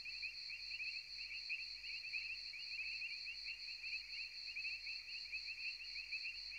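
Faint, steady chorus of chirping insects, like crickets at night, heard as two high, finely pulsing tones.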